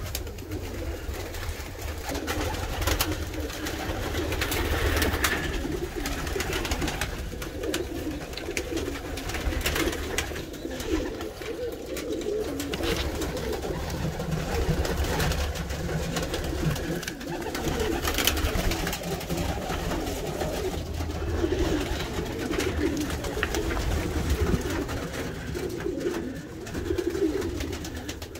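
Racing pigeons cooing almost without a break, a low wavering coo that keeps going throughout. A low rumble and a few light clicks run underneath.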